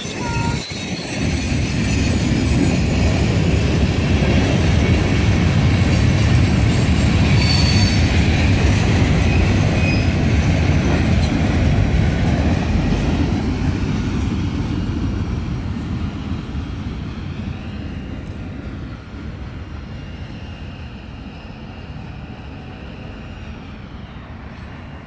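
Norfolk Southern freight train's cars rolling past on the rails, a steady wheel rumble and clatter with a thin high wheel squeal near the start. The sound fades steadily through the second half as the last cars pass and draw away.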